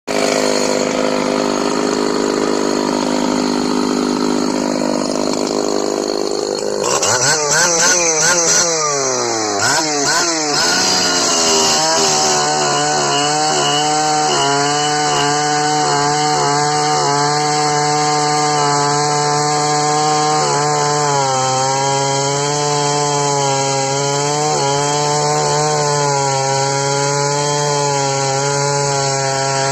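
Ported Husqvarna L77 two-stroke chainsaw running loudly. About seven seconds in its pitch swings rapidly up and down for several seconds, then it settles into a steady high-pitched run with small wavers.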